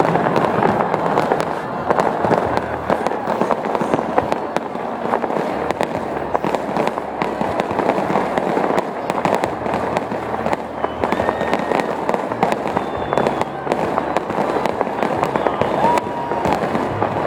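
Fireworks display: a dense, continuous barrage of rapid bangs and crackling.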